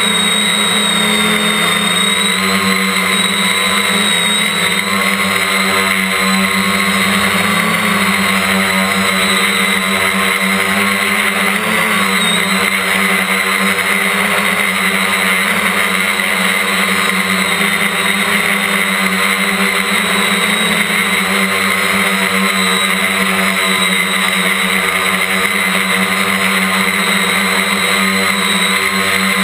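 Quadcopter's electric motors and propellers whining steadily, heard up close from a camera mounted on the craft, the pitch wavering slightly.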